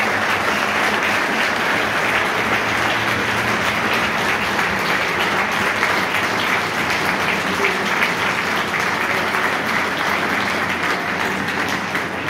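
Audience applauding in a hall, a steady, sustained round of clapping that eases slightly near the end.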